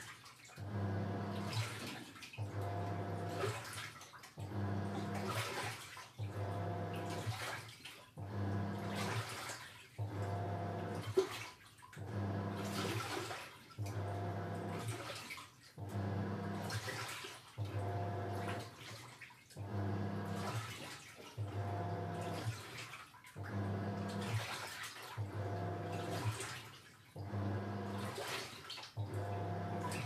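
Toshiba Star Crystal Drum 5 kg washing machine in its wash cycle: the motor drives the pulsator in regular strokes about every two seconds, each stroke a low hum with water sloshing and churning in the tub. A single sharp click sounds about eleven seconds in.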